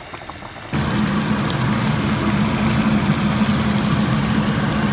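Steady low machine hum with a hiss over it, starting suddenly about a second in.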